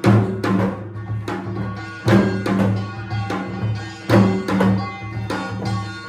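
Korean pungmul percussion music: drums and ringing metal percussion playing a steady rhythm, with a strong accented strike about every two seconds and lighter strokes between.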